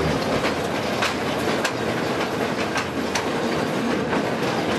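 Mine rail car running along its track: a steady rattling noise with irregular metallic clicks.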